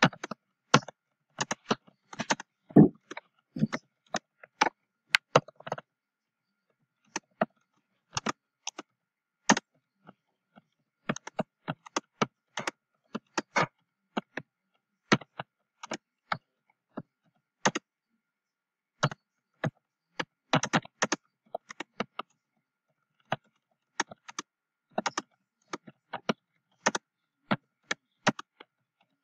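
Typing on a computer keyboard: irregular flurries of key clicks, broken by short pauses.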